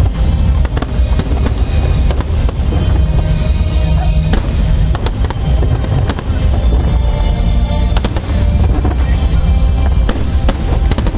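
Fireworks salute: a dense, continuous run of booms and sharp cracks over a deep rumble, with music playing underneath.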